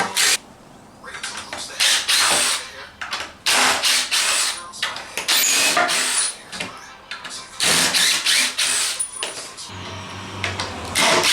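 A power tool run in short bursts of about a second, six or so times, with brief pauses between.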